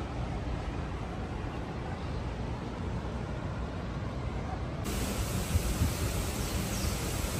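Steady low rumbling background noise with no distinct events. It changes character abruptly about five seconds in.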